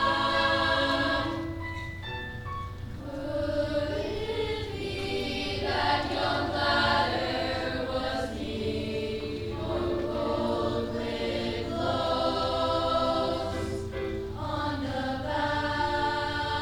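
Middle school choir singing in parts, sustained phrases with brief breaks between them, over a steady low hum.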